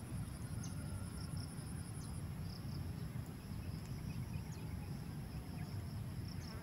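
Insects trilling steadily at a high pitch over a low, even rumble. One rapid pulsing high trill stops about two seconds in.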